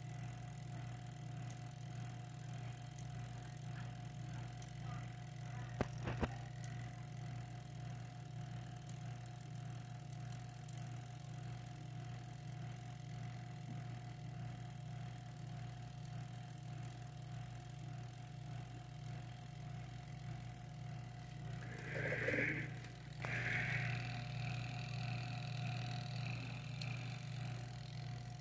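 Washing-machine motor running on the bench with a steady low electrical hum. A couple of clicks come about six seconds in, and a brief louder rattle about 22 seconds in.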